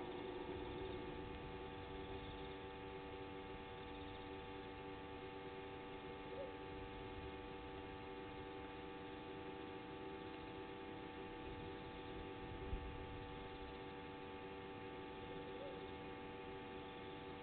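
Steady electrical hum made of several held tones over a low hiss, with one faint short thump about thirteen seconds in.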